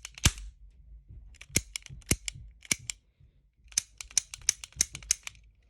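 Toy cap gun firing: a series of sharp cracks in three bursts, two near the start, a handful about two seconds in, then a quick run of about ten near the end.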